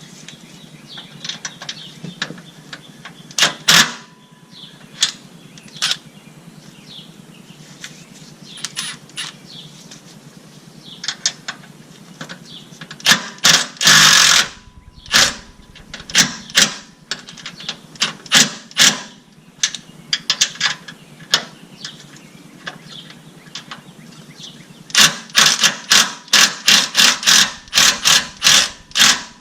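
Scattered clicks and clanks of tools and bolts being handled. Near the end a socket ratchet clicks in a steady rhythm, about three clicks a second, as a mounting bolt is tightened down.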